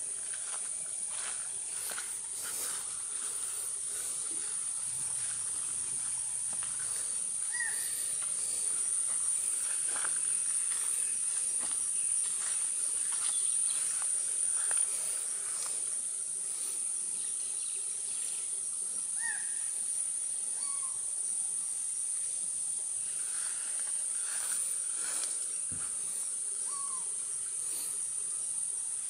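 Steady high-pitched insect chorus, with a few brief chirps now and then.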